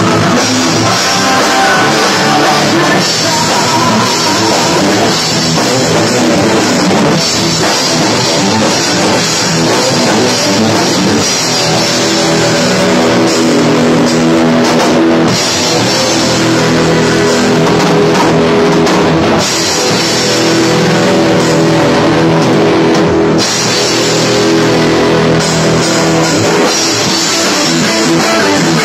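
Rock band playing loudly: drum kit and electric guitars over bass and keyboard.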